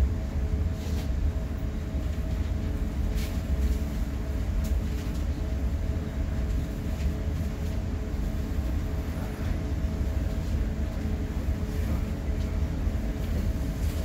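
Inside the upper level of a double-deck commuter rail coach, a steady low rumble and hum as the train rolls slowly to a stop and stands at a station platform. A few faint clicks come in the first seconds.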